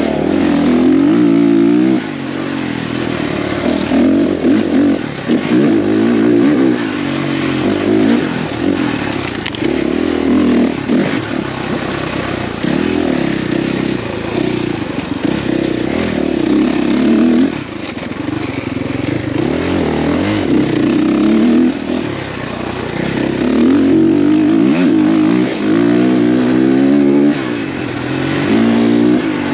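Dirt bike engine heard from on board while racing, its pitch rising and falling continually as the rider works the throttle through the gears, with several brief drops in revs.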